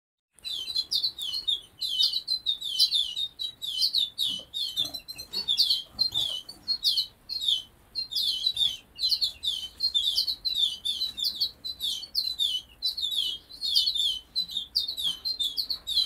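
Caged canaries and finches chirping and singing together, a dense, unbroken run of quick high notes.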